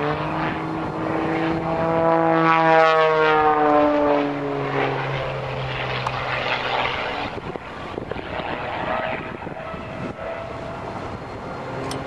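Propeller-driven aerobatic airplane flying past; its engine note drops in pitch as it goes by, loudest two to four seconds in, then comes back on another pass near the end.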